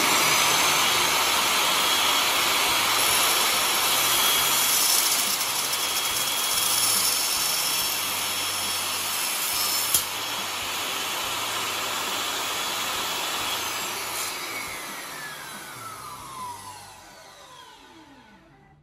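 Mitre saw with a Bosch aluminium-cutting blade running and slowly cutting through an aluminium LED profile at 45°. About fourteen seconds in the motor is switched off and the blade winds down with a falling whine.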